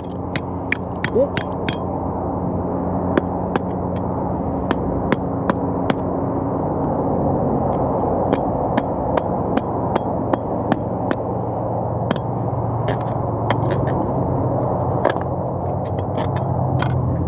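Irregular sharp metallic taps and clicks of hand tools working at a hole in metal, over a steady background rumble.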